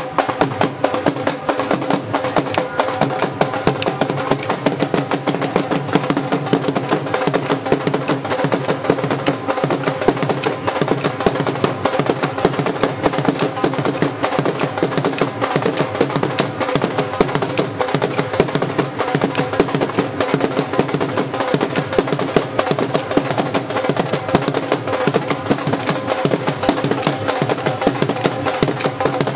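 Devotional music with fast, steady drumming over sustained held notes, without singing.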